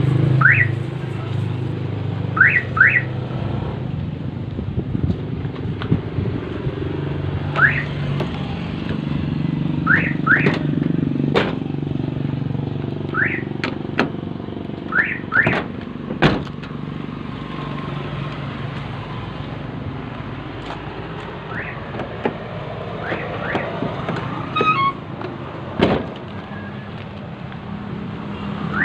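Newly installed aftermarket car alarm siren giving short upward-sweeping chirps, sometimes one and sometimes two in quick succession, every few seconds. Sharp clicks come in between, over a steady low rumble.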